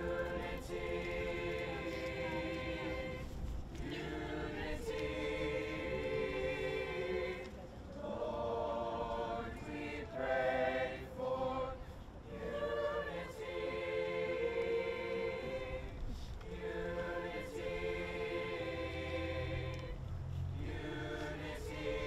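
Mixed-voice school choir singing, sustained chords in phrases of about four seconds with short breaths between them.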